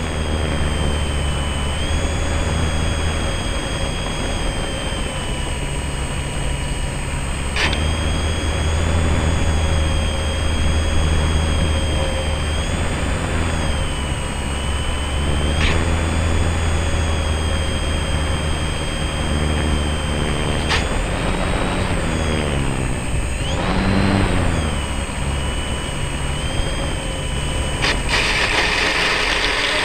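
Electric motor and propeller of an Ikarus Shock Flyer indoor RC plane, heard from a camera riding on the plane: a steady whine whose pitch rises and falls with the throttle, dipping and coming back about three quarters of the way through. Three sharp clicks break it, and near the end the whine stops and a hiss takes over.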